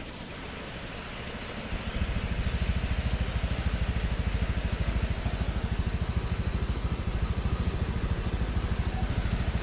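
A vehicle engine running close by with a rapid, even low throb that sets in loudly about two seconds in, over a steady hiss of street ambience.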